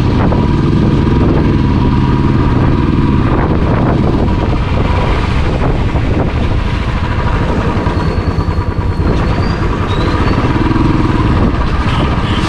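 Royal Enfield Classic 350's single-cylinder engine running steadily under way as the motorcycle is ridden, with wind noise on the microphone.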